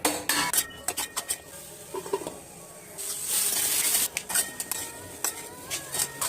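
A spoon clinking and scraping against a pan as carrot halwa is stirred, with a stretch of sizzling about three seconds in.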